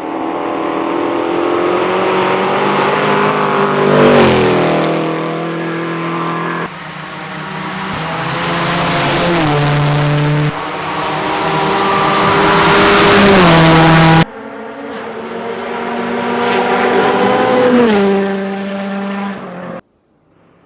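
Rally cars at full speed approaching and passing close by, one after another. Each engine note builds to a peak, then drops in pitch as the car goes past. Four short passes cut together, each ending abruptly.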